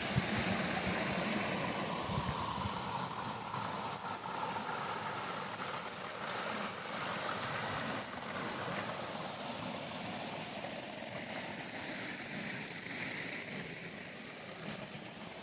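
Tropical forest ambience: a steady, high-pitched insect drone, most likely cicadas, over a low, even background noise.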